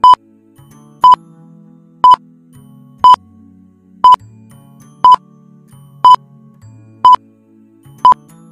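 Countdown timer beeping once a second, nine short high beeps of the same pitch, ticking off the seconds of a ten-second answer timer, over quiet background music.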